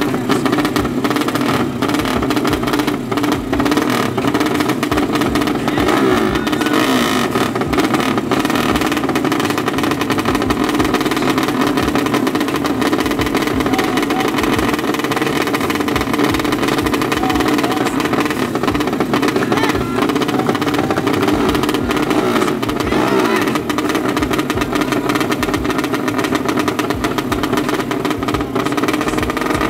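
Drag-racing motorcycle engines running loud and rough at the start line, their revs rising and falling as the riders hold them ready for the flag.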